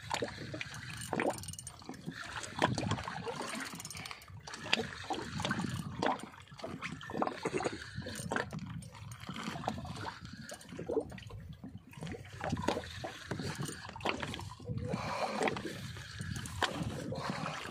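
Sea water lapping and sloshing against the hull of a small boat, in irregular splashes and knocks.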